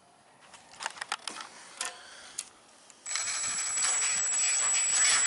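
Light clicks and knocks of small metal parts being handled on a lawn mower engine's carburetor, then about two seconds of loud steady hiss with a thin high whistle that cuts off suddenly.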